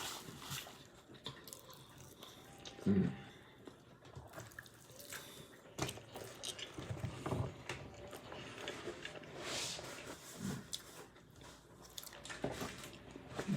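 Close, wet chewing and mouth smacking while eating pizza, with many small scattered clicks and a short louder low sound about three seconds in.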